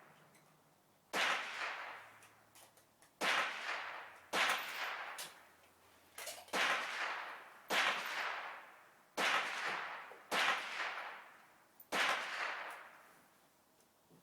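Savage .17 HMR rimfire rifle fired about eight times, a sharp crack every one to two seconds, each trailing a long echo that dies away.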